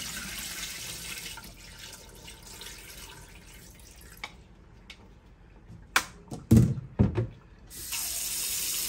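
Water poured out of a bowl of soaking beef ribs, splashing into a kitchen sink and tapering off. A few sharp clunks follow as the bowl is knocked and set down in the sink, the loudest sounds here. Near the end, tap water runs steadily into the bowl.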